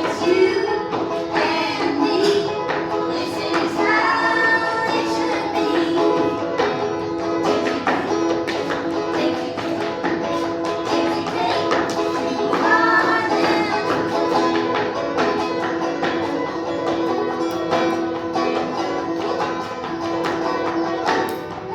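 Clawhammer banjo playing a folk tune, with sung lines near the start, about four seconds in and about thirteen seconds in. Sharp percussive taps run through the music, from the banjo strokes and footwork on a dancing board.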